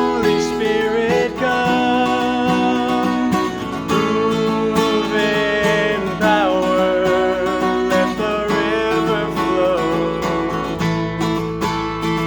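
Music: a worship song played on acoustic guitar, with a wavering melody line carried over the chords.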